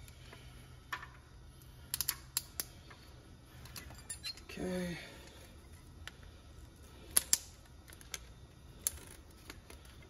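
Sharp metal clicks and snaps of pipe clamps being worked off spa plumbing hose with pliers, a dozen or so scattered irregularly, some in quick pairs.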